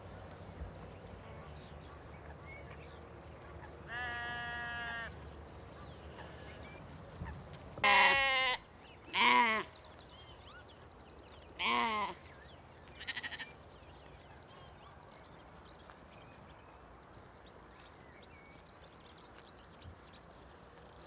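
Sheep bleating, several separate calls: one steady, higher-pitched bleat about four seconds in, then three louder, wavering bleats between eight and twelve seconds, and a faint short one just after.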